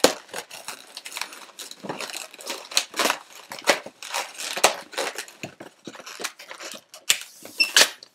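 Latex twisting balloons rubbing and squeaking against each other as they are twisted and tied by hand: a run of short squeaks and crinkles, with a brief high squeak near the end.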